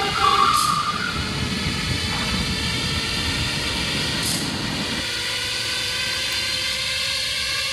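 Small motor scooters running as they ride off, with wind on the microphone, over steady background music; the engine noise stops about five seconds in, leaving the music.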